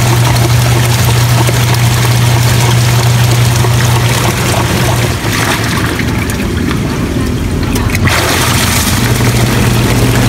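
Washing machine running with water in the tub: a steady motor hum under water churning and splashing. The hum stops about five seconds in and comes back near the end while the water noise carries on.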